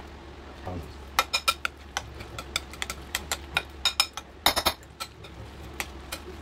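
Metal spoon clinking against a glass mixing bowl while stirring chopped lettuce and onion into a mayonnaise dressing: irregular clinks from about a second in, with a quick cluster a little past the middle.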